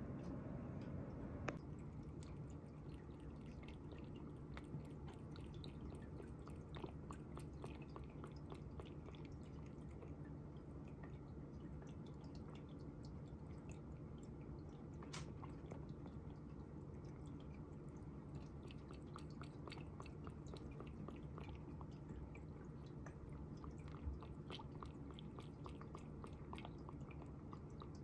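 Cat eating dry kibble from a bowl: faint, irregular crunches and clicks over a steady low hum.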